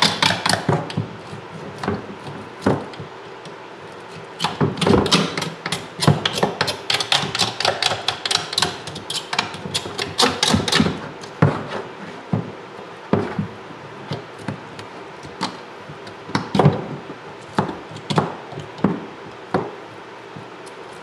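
Scraping boiled meat off a bear's jawbone by hand: rapid, sharp clicks and scrapes of a tool on bone, packed close together through the middle, then scattered knocks near the end.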